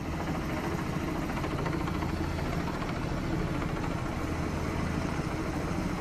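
Helicopter flying low overhead: a steady drone of rotors and engine with the rapid, even beat of the rotor blades.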